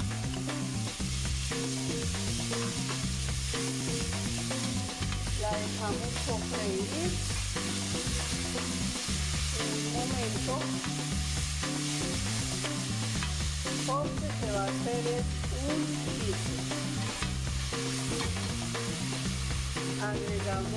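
Chopped onion frying in hot oil in a stainless steel frying pan: a steady sizzle, with the onion stirred with a spoon.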